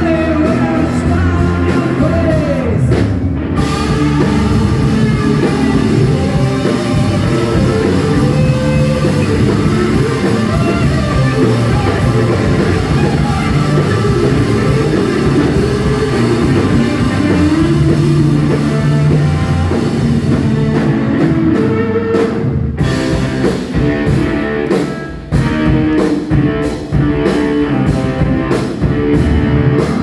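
Live rock band playing with a singer: electric guitar, bass, drums and keyboards, with a few short stops in the band.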